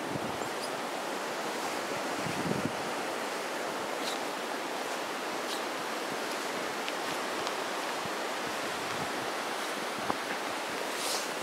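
Strong blizzard wind blowing steadily, a continuous rushing noise with a few faint ticks.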